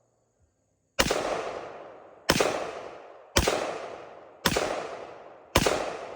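.223 sporting rifle firing five shots about a second apart, each sharp crack followed by a long echo that fades over more than a second.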